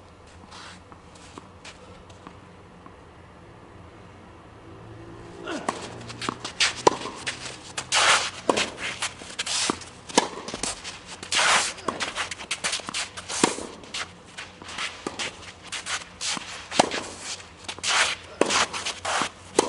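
Tennis rally: the ball struck by rackets and bouncing on the court, mixed with the players' quick footsteps. It starts about five seconds in, after a quieter stretch of faint taps, and the knocks then come irregularly, roughly one to two seconds apart for the loudest.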